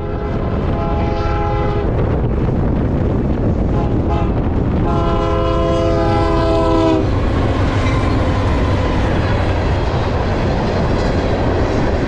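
Approaching freight train's air horn sounding a chord, one blast about a second in and a longer one ending about seven seconds in, over a steady heavy rumble of the train and strong wind on the microphone. Near the end, freight cars roll past the crossing.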